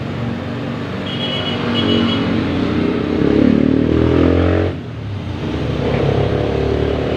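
Motorcycle engine running, its revs rising for a couple of seconds, dropping off sharply about halfway through, then picking up again.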